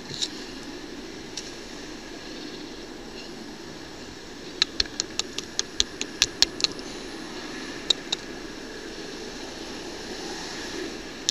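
A strong fishing magnet and the rusty iron stuck to it clicking and knocking against a concrete ledge: a quick run of about a dozen sharp taps partway through, then two more, as finds are pulled off the magnet. A steady background hiss runs underneath.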